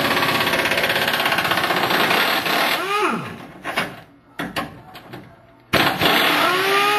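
Impact wrench hammering as it runs skid-plate bolts off. It stops about three seconds in, with a falling whine as it spins down. After a pause with a few clicks it hammers again near the end, with a whine.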